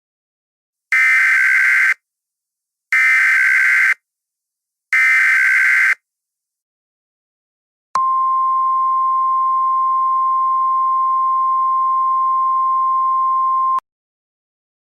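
Emergency Alert System header: three one-second bursts of buzzy digital data tones, two seconds apart. Then a steady single-pitch warning tone for about six seconds that cuts off sharply. Together they mark the start of a new emergency alert.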